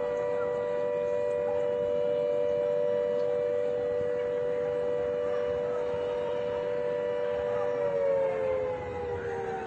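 Warning siren sounding the alert before a building demolition: a steady wail on two held pitches that starts to slide down in pitch about eight seconds in as it winds down.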